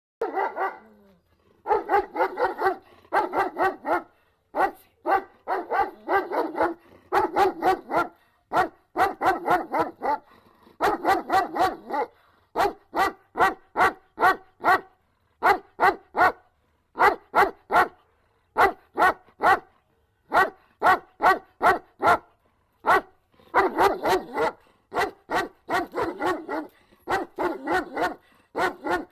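A dog barking over and over, in quick runs of several barks with short pauses between the runs.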